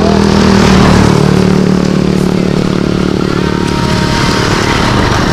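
A small engine running steadily at a constant pitch, loud throughout.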